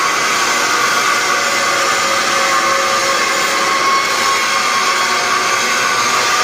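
A grinder grinding metal: a loud, unbroken whine over a hiss, holding steady throughout.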